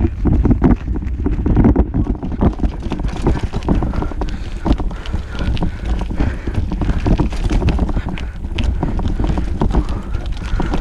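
Wind rumbling on the action camera's microphone while a bicycle rides over a bumpy dirt trail, with frequent rattles and knocks from the bike.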